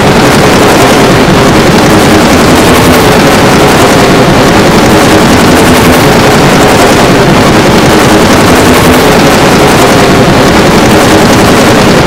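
Mock emergency alert (EAS) alarm audio: a very loud, heavily distorted, steady noise roar with a low droning hum underneath.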